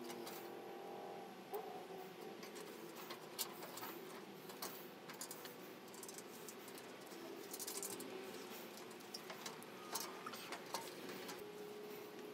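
Faint, scattered clicks and light knocks from hands handling and fitting a black plastic tray and its mounting hardware during assembly, over a faint steady hum.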